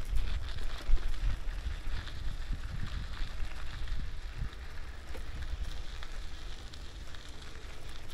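Bicycle riding noise on a dirt path: wind buffeting the camera's microphone as a low, uneven rumble, with a crackling rustle of tyres rolling over the packed dirt.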